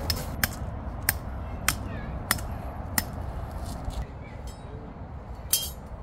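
Tent peg being hammered into gravel ground: a run of sharp metallic clinks, one strike about every half-second, stopping about three seconds in, with a short scraping clatter near the end, over a steady low rumble.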